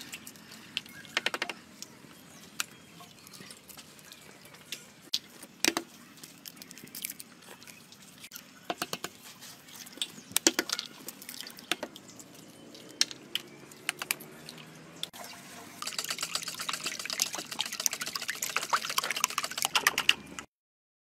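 Eggs cracked on the rim of a steel bowl: scattered sharp taps and the wet drip of egg dropping in. About three-quarters of the way through, a fast, steady run of clicks as the eggs are beaten in a metal bowl, cutting off suddenly near the end.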